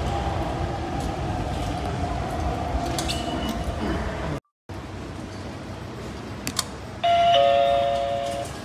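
Old-type Hanshin automatic ticket gate sounding its error chime: two steady tones, a higher one joined by a lower one, lasting about a second and a half, preceded by a couple of clicks. It signals a processing-incomplete (処理未了) IC card error, the gate asking for the card to be touched again. Earlier there is only steady station background noise.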